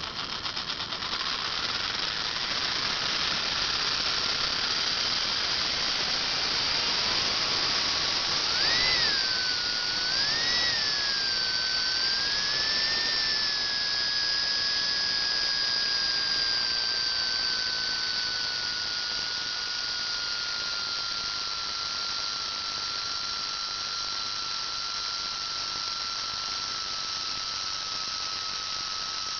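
Mura electric motor in a 1/24 scale slot car chassis running and spinning the rear axle through its gears: a high whine that starts as the power comes on, climbs sharply twice about a third of the way in, then slowly eases lower.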